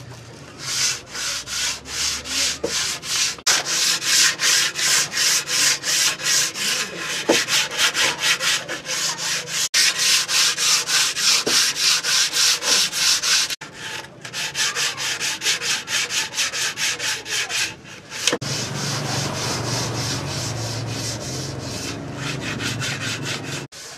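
Hand sanding of a wooden stool top with sandpaper: quick back-and-forth rubbing strokes, about two to three a second, broken off a few times and running smoother and more continuous near the end.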